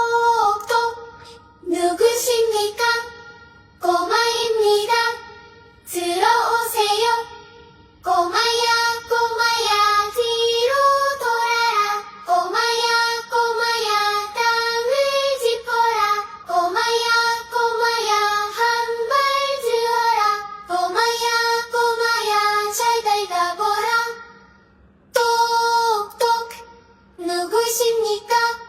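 Background music: a high, child-like singing voice carries a melody in short phrases, with brief pauses between the first few phrases and another pause near the end.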